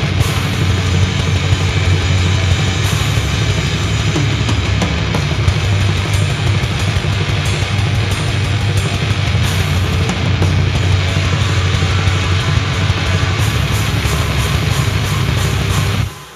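Death metal playing loud and dense: heavily distorted guitars, bass and drums. It stops abruptly near the end, leaving only a faint ringing.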